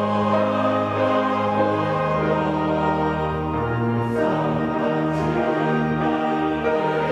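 Mixed church choir singing a Korean hymn in sustained chords, accompanied by organ and piano.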